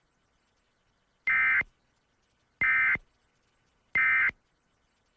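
Emergency Alert System end-of-message signal: three short bursts of SAME digital data, each about a third of a second long, about a second and a quarter apart, marking the end of the alert.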